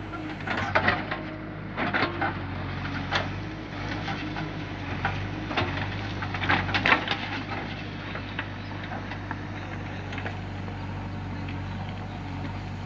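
JCB 3DX backhoe loader's rear bucket digging into stony soil: crunching, cracking and clattering of rocks and earth, heaviest in the first seven seconds and sparser after, over the steady low hum of idling diesel engines.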